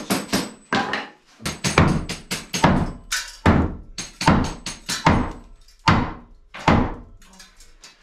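Hammer driving a nail into a wooden board, with sharp blows coming two or three a second and a few lighter taps near the end.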